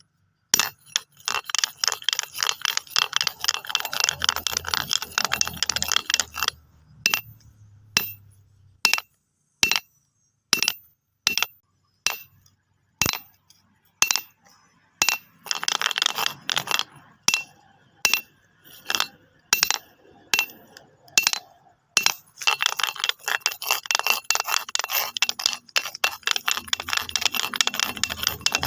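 Stones knocking and clattering against one another: dense runs of rapid clicking, broken by single sharp clacks about a second apart.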